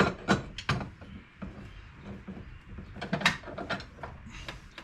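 Scattered sharp metal clicks and knocks of tools and prop-shaft parts being handled, several near the start and a cluster about three seconds in.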